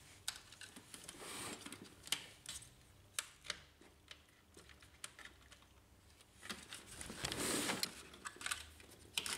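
Scattered small plastic clicks and taps as wire connectors are unplugged from a Brother HL-1110 laser printer and its plastic frame is handled. Two stretches of rustling come in, a short one about a second in and a longer one around seven seconds in.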